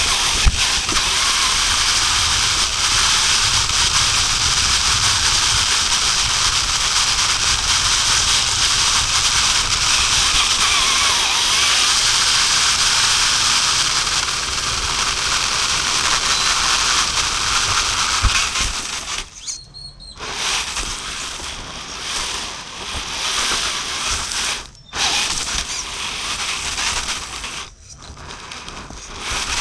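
Axial Capra RC crawler driving over rough ground: a steady grinding whir of its electric drivetrain and tyres. From about two-thirds of the way in, the noise keeps cutting out abruptly for short moments as the crawler stops and starts.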